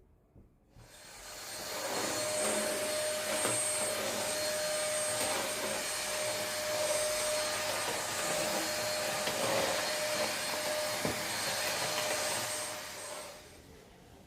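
A household electric appliance motor running steadily with an even rushing noise and a steady whine, starting up about a second in and switching off near the end.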